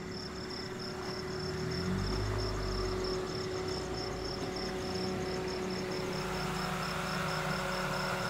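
Crickets chirping in a fast, even pulse, with the low steady hum of a car engine running underneath from about two seconds in.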